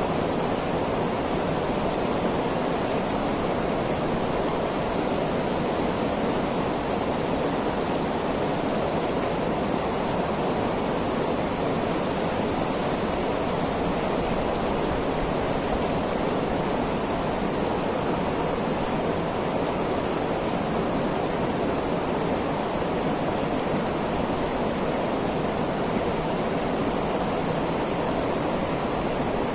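Steady rushing of a swollen, fast-flowing river running high after heavy rain.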